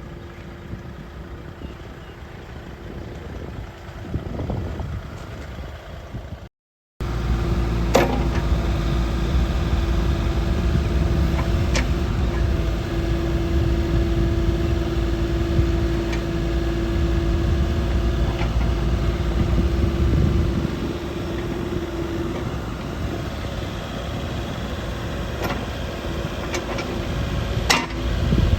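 Kubota U48-5 mini excavator's diesel engine running steadily. It is quieter at first, then louder after a short break about seven seconds in, with a steady hum over the rumble and a few sharp clicks.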